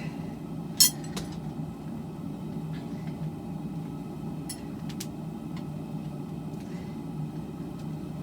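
Propane forge burner running with a steady low rumble, with one sharp metallic clink about a second in and a few lighter clicks later.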